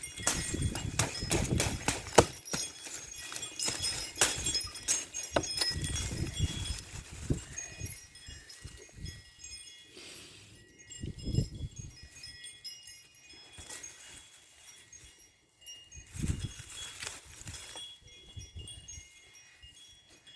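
Wind chimes ringing, their thin high tones sounding on and off throughout. Over them, knocks and rustling through the first eight seconds, then a few louder low bursts near the middle and later on.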